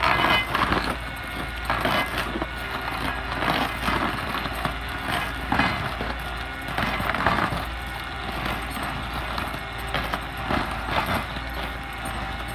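Vertical-rotor stump grinder on a Fendt 826 tractor chewing into a tree stump: the 27-inch rotor blades tear through the wood in uneven surges about once a second, over the tractor's engine running steadily under load.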